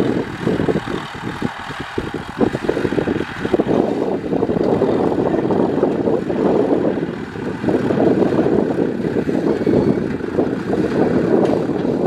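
Kubota M6040SU tractor's four-cylinder diesel engine running steadily under load while pulling a disc plough through dry ground.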